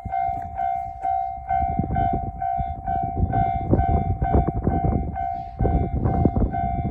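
Japanese railway crossing bell ringing its "kan-kan" warning at about two strikes a second, over the low rumble and rail-joint clatter of a JR Central Tokaido Line electric train passing.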